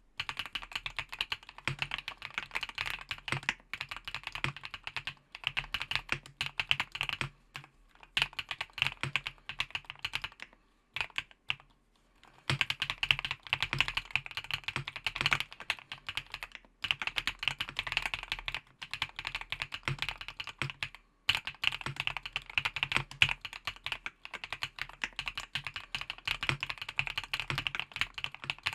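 Continuous typing on a gasket-mount mechanical keyboard (EPOMAKER HACK 59) with factory-lubed Epomaker Wisteria V1 linear switches: fast runs of key presses and bottom-outs, broken by short pauses, the longest about ten seconds in.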